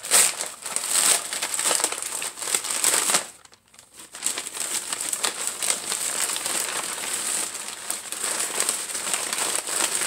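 Plastic poly mailer bag crinkling and rustling as hands pull it open and rummage inside, with a brief pause about three and a half seconds in.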